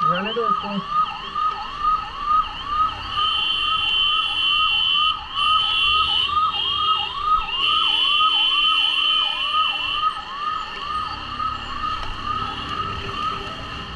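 Ambulance siren in a fast yelp, its pitch swooping up and down about two to three times a second, heard up close. A steady high tone sounds over it in long stretches through the middle. The siren stops about ten seconds in, leaving traffic noise.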